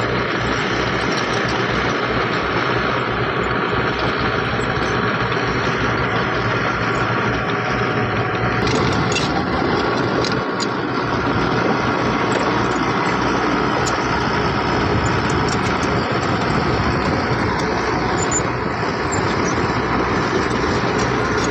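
Heavy diesel engine of earthmoving machinery (excavator, bulldozer or dump truck) running steadily on a worksite, with a few faint metallic ticks about halfway through.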